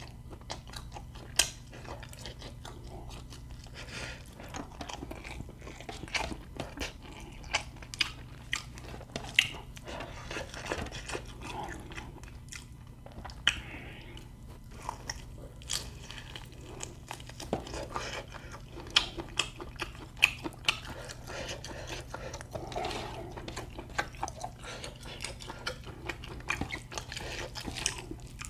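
Close-miked chewing and crunching of food with many sharp, irregular clicks and mouth smacks, over a faint steady low hum.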